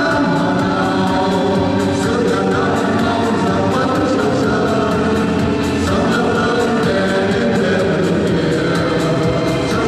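A mixed choir of men and women sings together in parts over instrumental accompaniment with a steady beat.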